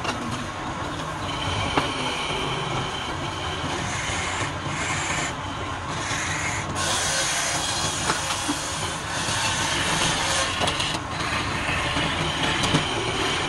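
Wood lathe running while a turning tool cuts the spinning wood; the cutting hiss starts and stops several times over a steady machine noise.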